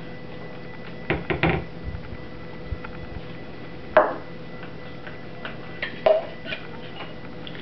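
A few knocks and clatters of soap-making utensils being handled: a cluster about a second in, a sharp knock at about four seconds as the stick blender comes out of the plastic bucket, and more light clinks around six seconds as a glass measuring cup is picked up. A faint steady hum runs underneath.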